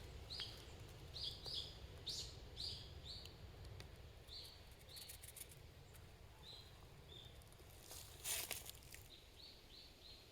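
Faint bird calls: a series of short, repeated chirps, with a brief rustle about eight seconds in.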